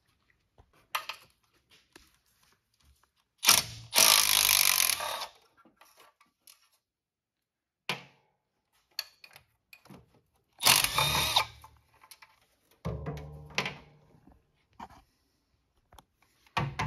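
Handheld cordless power tool running in short bursts of one to two seconds, about four times, as it backs out the valve cover bolts on a 413 big-block V8. Sharp clicks of metal fall between the runs.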